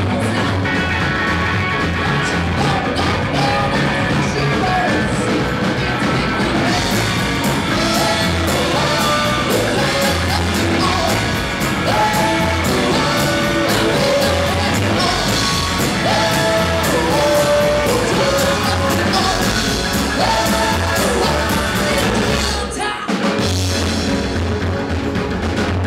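Live rockabilly band playing a song: electric guitar and drums with a man singing. The band stops for a moment near the end, then comes back in.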